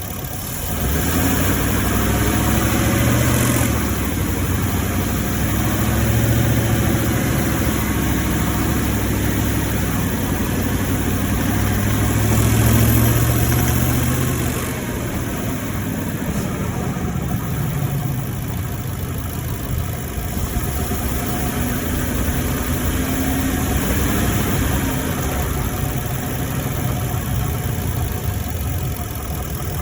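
2018 Ford F-150's 5.0 L V8 engine running while driving, its pitch rising and falling with engine speed and swelling about a second in and again around the middle. The owner reports a knocking noise from this engine while driving.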